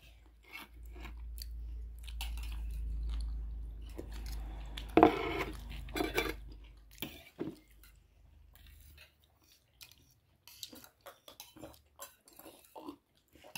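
Close-up eating sounds of a mukbang meal of laphing and chow mein: chewing and biting with many small wet clicks, and light clinks of cutlery on dishes. A low steady hum sits underneath and stops about two-thirds of the way through.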